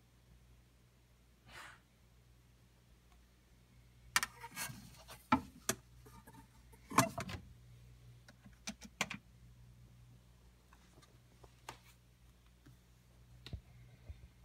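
Clicks and knocks of a wind-up phonograph being handled as a 78 rpm shellac record is set on its turntable, over a faint low hum. The knocks cluster between about four and nine seconds in, with a few lighter clicks after.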